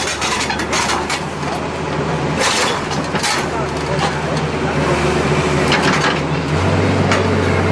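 An engine running steadily at a low pitch, its tone shifting slightly near the end, with people's voices and several brief rushes of noise over it.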